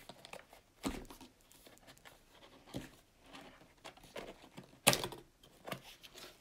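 Cardboard lava lamp box being opened by hand and its paper insert pulled out: scattered rustling and light clicks of card, with one sharp snap about five seconds in.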